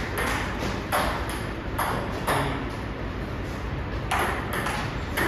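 Table tennis rally: a ping-pong ball clicking sharply off paddles and table, one hit roughly every second.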